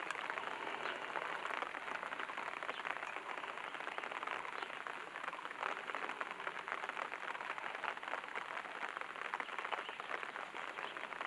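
Steady, dense patter of rain on a surface, a crackle of many fine ticks with no single loud strike.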